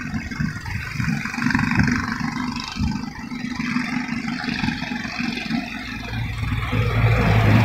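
An engine running, with an uneven low rumble and a steady hum that comes in and grows louder about six seconds in.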